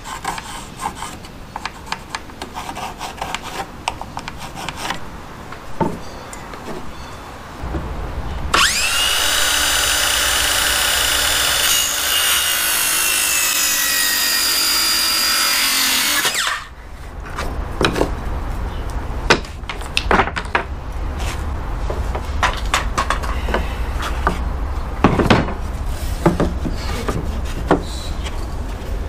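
A handheld electric power tool runs for about eight seconds near the middle, a loud, high motor whine that sags slightly in pitch as it works into wood. A low hum starts just before it and carries on afterwards. Before and after the tool runs, boards are handled with scattered knocks and scraping.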